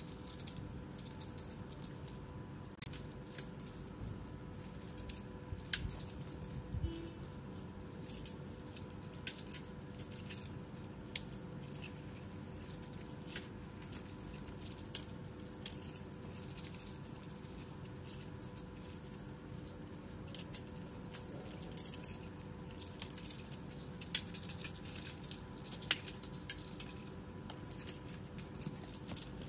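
Kittens scuffling and pouncing on dry dirt and leaves around a feather teaser toy, making irregular light clicks, rustles and rattles, with a steady faint hum underneath.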